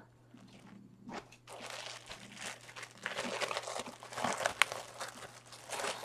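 Clear plastic packaging bag crinkling and rustling as a t-shirt is handled inside it, starting about a second in, with one sharp click partway through.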